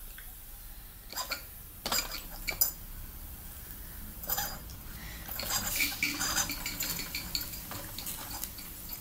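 Small metallic clinks and rattles from a Mamod TE1A model steam traction engine as it is handled and then sets off across a tiled floor. There are a few separate clicks at first, then a denser clatter about halfway through.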